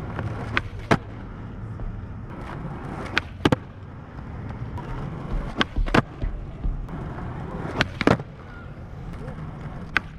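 Skateboard wheels rolling on asphalt, broken four times by a pair of sharp clacks about a third of a second apart as the tail pops and the board lands from a flatground trick. A fifth pop comes near the end.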